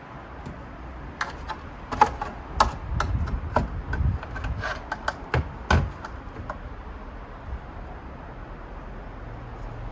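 Irregular clicks, knocks and scraping as the antenna is worked loose from the back housing of a 2011 iMac. The strikes are bunched in the first six seconds, then it goes quieter.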